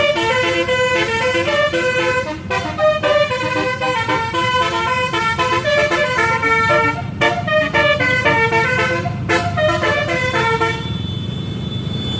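Bus telolet horn, a multi-trumpet horn, playing a quick tune of short stepped notes over the bus's running engine; the tune stops about eleven seconds in.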